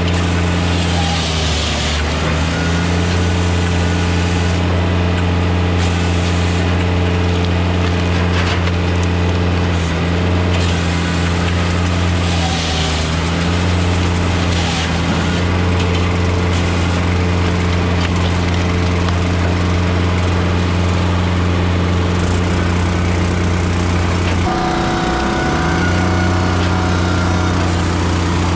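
Blockbuster firewood processor's engine running steadily, its note sagging briefly a few times under load as the saw and splitter work through softwood logs. About 25 seconds in, the engine note changes to a different steady pitch.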